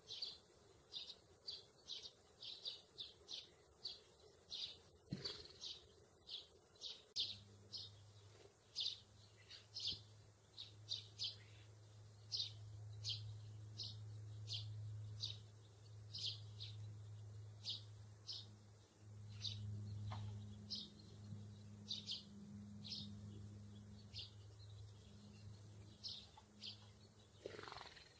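Sparrows chirping: short, sharp chirps, several a second, irregular. From about seven seconds in, a low steady hum runs underneath.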